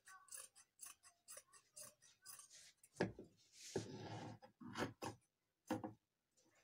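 Scissors snipping through heavy gobelin upholstery fabric in a run of short cuts, with a few louder thumps about three, five and six seconds in.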